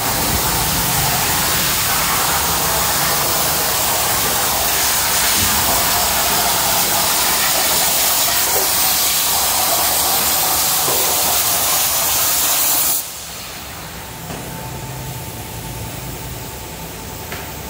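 CNC plasma cutter's torch cutting steel sheet, a loud steady hiss that cuts off suddenly about thirteen seconds in as the cut ends, leaving a fainter steady hum from the machine.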